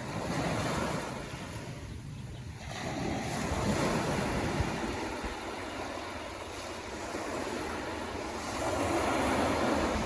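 Ocean surf breaking and washing in, a steady rush that swells three times: just after the start, about four seconds in, and near the end.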